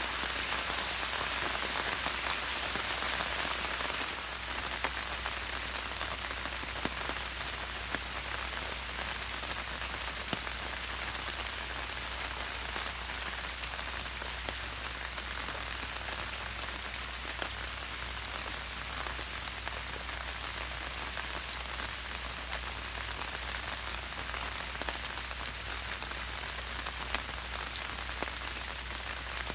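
Steady rain falling and pattering on the surfaces around a bird's nest, a little lighter after about four seconds.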